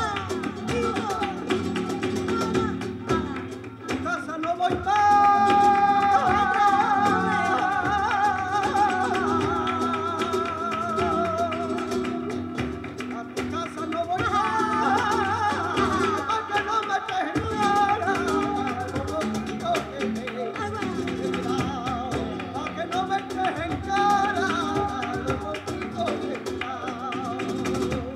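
Live flamenco guajira: a male singer sings long, wavering lines over acoustic flamenco guitar, with percussion and sharp taps throughout. The singing grows strongest about five seconds in.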